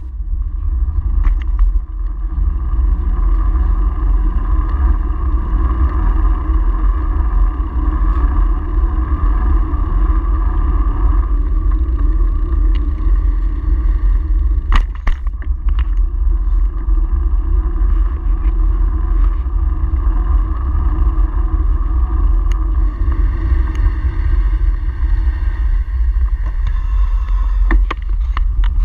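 Steady wind and road rumble picked up by a camera on a moving bicycle, with a couple of sharp knocks from bumps, one about halfway through and one near the end.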